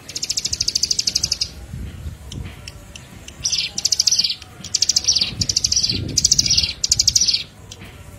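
A small songbird calling in fast, high, evenly pulsed trills, about six bursts each lasting under a second to a second and a half, from a bird-luring recording of ciblek, prenjak and kipas calls.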